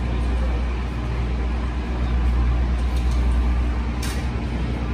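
Steady low engine drone with an even rumble, and one sharp click about four seconds in.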